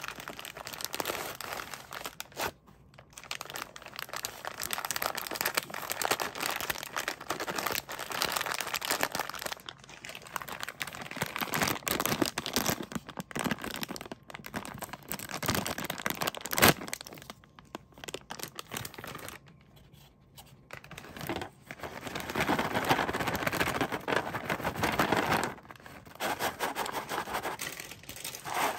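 Clear plastic bag of dog treats crinkling and rustling as it is handled and opened, with a cloth drawstring sack rustling. The noise comes in stretches, with short pauses between them. There is one sharp snap about two-thirds of the way through.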